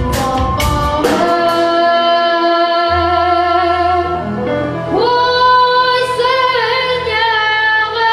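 A boy singing with live band accompaniment: a few drum strokes in the first second, then a long held note with vibrato from about five seconds in over a steady low accompaniment.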